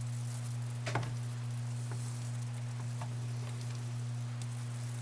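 A steady low hum with a few faint, scattered clicks, the sharpest about a second in.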